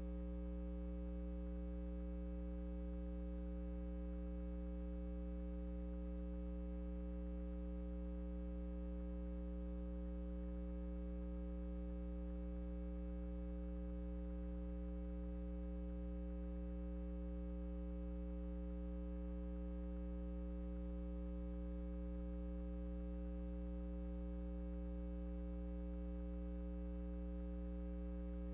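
Steady electrical mains hum with a stack of buzzy overtones, unchanging throughout; no music or voices.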